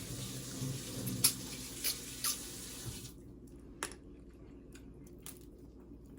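Blue crab shells being cracked and pulled apart by hand: a few sharp cracks and snaps with eating noises between, over a steady hiss that cuts off suddenly about three seconds in.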